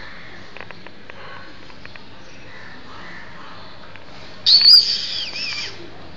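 A single loud, high-pitched squeal lasting about a second, falling in pitch near its end, over a faint steady background with a few light clicks.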